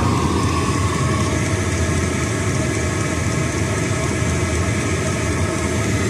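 Chinese diesel air heater running steadily with its burner lit: an even, unbroken drone from the combustion fan and burner.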